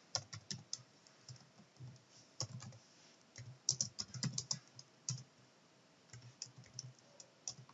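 Typing on a computer keyboard: faint, irregular keystrokes coming in small clusters with short pauses between them.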